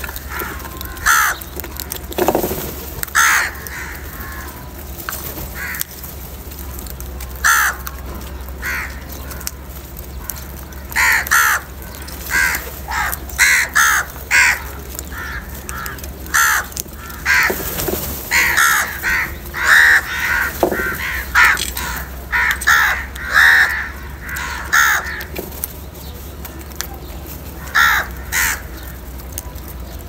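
Crow cawing repeatedly: short harsh calls, a few seconds apart at first, then in quick runs from about ten seconds in, thinning out again near the end.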